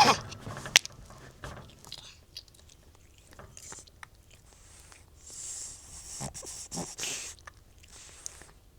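An old cat retching: wet clicks and smacking from its mouth and throat, with breathy, rasping heaves about five to seven seconds in.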